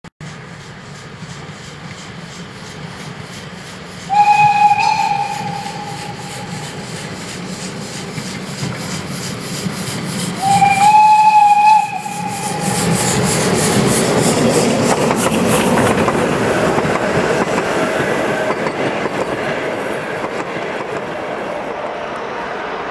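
Narrow-gauge steam locomotive 99 6101 working a train past, its exhaust beats rhythmic and getting louder as it nears, loudest about two-thirds through and easing off afterwards. Its steam whistle sounds twice: once about four seconds in and again about ten seconds in.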